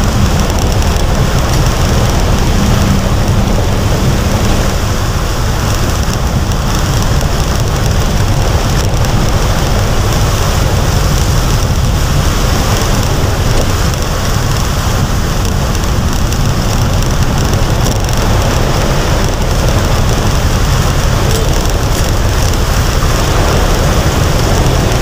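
Heavy tropical rain pouring down steadily, loud and unbroken, with a deep constant rumble underneath. A low hum fades out about four seconds in.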